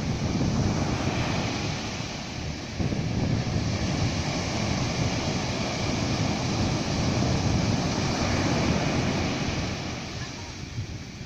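Sea surf breaking and washing up a sandy beach in a continuous wash that swells and eases, with wind buffeting the microphone.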